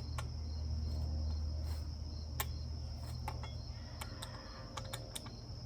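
Scattered light metallic clicks and taps of a small wrench and nut being worked by hand, over a steady high-pitched chirr and a low hum.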